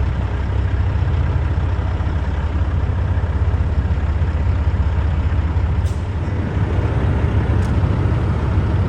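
Steady low rumble of a vehicle on the move: engine and road noise heard from inside the cab, level and unbroken.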